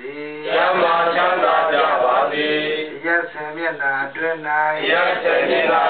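Buddhist devotional chanting, a monk's voice amplified through a microphone with other voices joining: a continuous recitation on a few pitches with long held notes.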